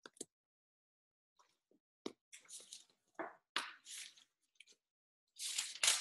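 Rustling and clicking of things being handled close to the microphone: a click at the start, a run of short rustles in the middle, and the loudest rustle near the end.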